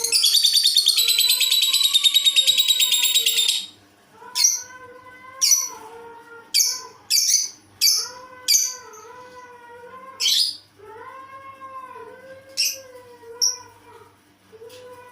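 Lovebird chattering loudly and rapidly for about three and a half seconds, then giving short sharp calls, about nine of them, spread over the rest. Beneath them runs a quieter, lower wavering tone that rises and falls in pitch.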